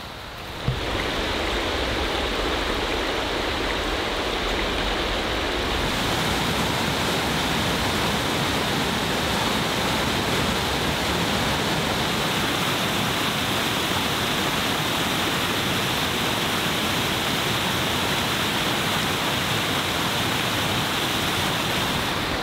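Steady rushing of flowing water, like a mountain stream, cutting in abruptly about a second in.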